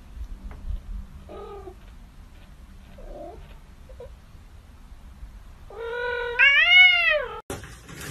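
Kitten giving a few faint little squeaks, then one long, loud meow about six seconds in that rises and then falls in pitch.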